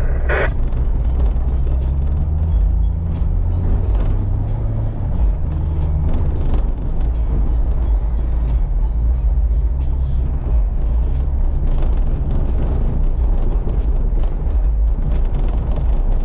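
Inside a truck cab driving on a backcountry road: a steady low engine and road rumble whose pitch shifts slightly a few seconds in, with many small ticks and rattles throughout.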